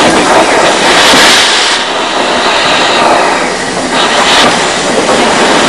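Small steam locomotive hissing steam at close range, with two louder surges of hiss about a second in and again around three seconds in.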